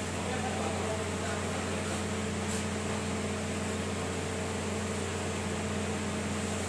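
Car air-conditioning running with the engine idling, heard from inside the cabin: a steady hum with the blower's even rush of air. The freshly recharged system is cooling hard.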